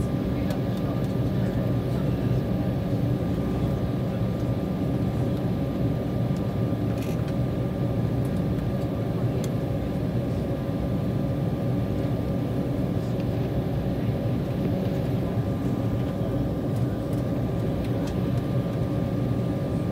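Airliner's jet engines running steadily at low power, heard from inside the passenger cabin as the plane taxis, a constant drone with a thin steady whine over it.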